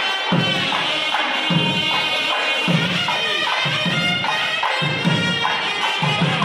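Traditional temple music: a reedy wind instrument carrying a melody over recurring drum strokes.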